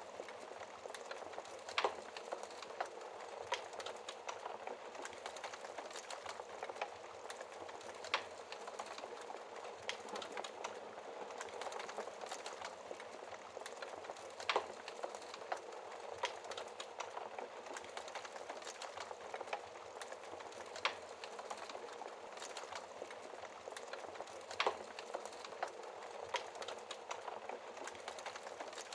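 Fireplace fire crackling steadily: a dense hiss of small crackles, with a sharper pop every few seconds, five in all.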